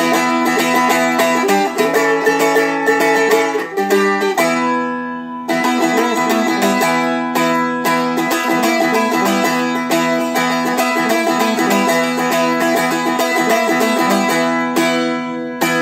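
Seagull Merlin, a small dulcimer-style fretted instrument, strummed with a pick in a quick, steady rhythm of chords. The strokes pause briefly about four seconds in while a chord rings on, then resume, with a final strum near the end left ringing.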